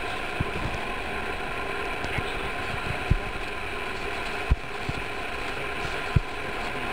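A steady droning background noise with a few faint steady tones in it, broken by three short dull low thumps spread through the middle.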